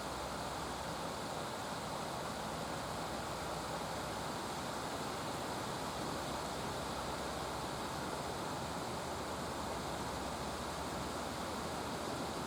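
Steady rushing noise of flowing river water, even throughout with no calls or other events standing out.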